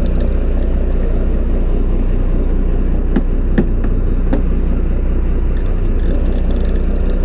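Fishing boat's engine running with a steady low rumble, with a few light knocks about three to four and a half seconds in.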